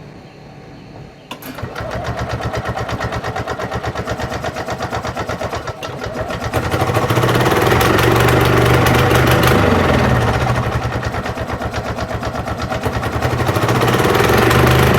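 EzGo Marathon golf cart's two-stroke gas engine started about a second in, then running with a rapid firing beat, speeding up about six seconds in, easing off, and picking up again near the end. It still needs the choke to keep running, which the owner takes to mean the carburetor needs cleaning.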